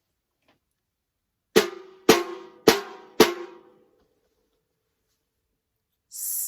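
Rhythm sticks struck together four times at a steady beat, each strike ringing briefly: one strike for each of the four sounds in the word 'sweet'.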